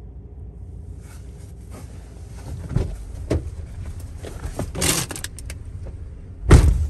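Inside a parked car: a steady low rumble, a few knocks and rustles from about three seconds in, and a loud car-door thump near the end.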